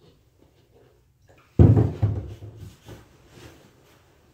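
A sudden low thump about a second and a half in, dying away over about a second, followed by fainter knocking and handling sounds.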